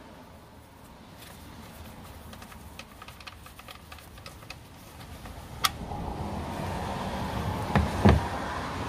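Engine oil draining from a Honda Civic's oil pan into a catch pan. Light metallic clicks come first, then a sharp click about halfway through. After that a steady pouring stream sets in and grows louder toward the end.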